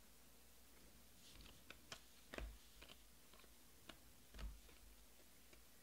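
Faint clicks and slaps of 2020 Panini Prizm Draft football cards being flipped through by hand, a handful of light taps with two slightly louder ones about two and a half and four and a half seconds in.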